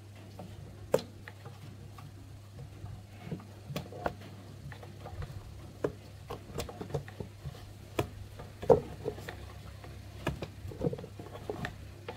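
Irregular clicks and light metallic knocks of hand tools and metal parts being handled on an air compressor, a few of them ringing briefly, over a low steady hum.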